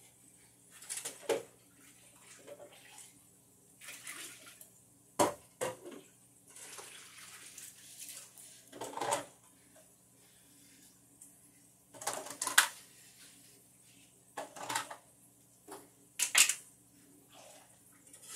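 Irregular clatters and clinks of hard objects being handled, in short sharp bursts a second or few apart, over a faint steady hum.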